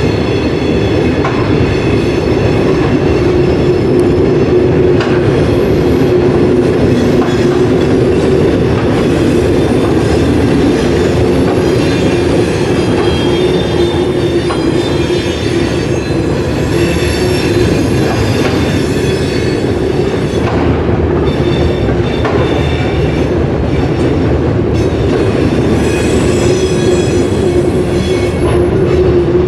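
A train rolling past with a steady rumble, its wheels squealing in high tones for stretches and clicking now and then over the rail joints.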